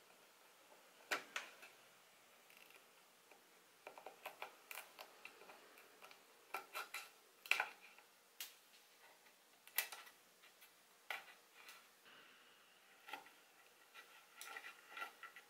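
A thin steel pick scraping and picking waste fibres out of the corners of dovetail sockets in Taiwan cypress: quiet, irregular ticks and short scratches of metal on wood.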